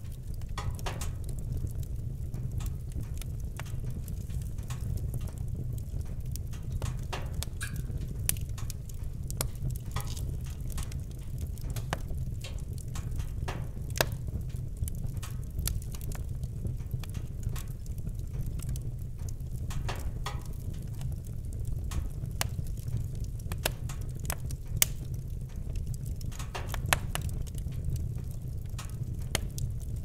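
Wood fire burning, with irregular crackles and snaps over a steady low rumble, and a few sharper pops about halfway through and near the end.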